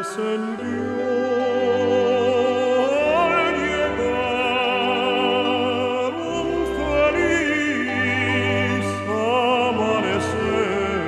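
Background music: a solo operatic singing voice with strong vibrato, holding long notes over orchestral accompaniment.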